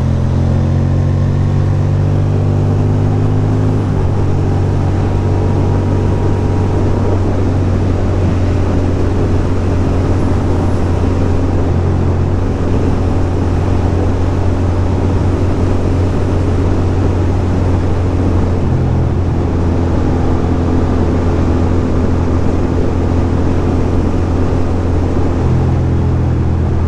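2006 Ducati Monster 620's air-cooled L-twin engine running steadily at cruising speed, with wind and road noise over it. The engine note glides a little in the first few seconds, then holds steady.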